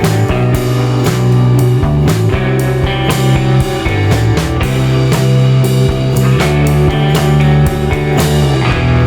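Background rock music with drums, bass and electric guitar and a steady beat.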